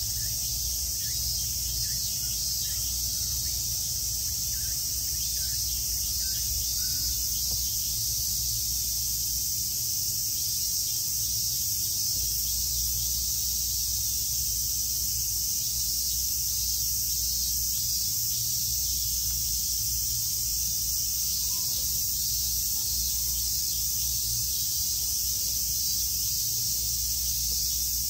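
A steady, high-pitched chorus of summer cicadas buzzing without a break.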